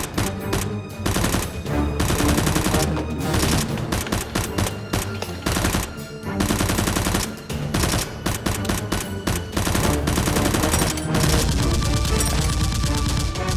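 Rapid automatic gunfire sound effects, long runs of shots fired in quick succession, over background music.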